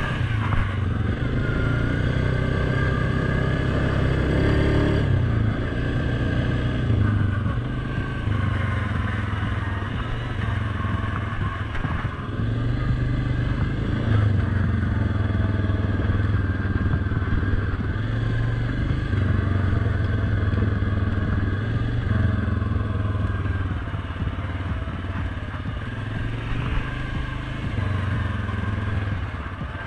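Suzuki King Quad 750 ATV's single-cylinder engine running under the rider's throttle on a dirt trail, its note rising and falling every few seconds.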